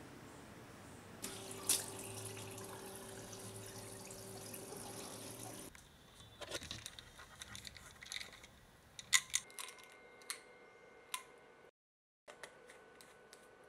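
A steady hiss for about four seconds, then a run of sharp clicks and light rattles as a white plastic pill bottle is handled and its cap opened.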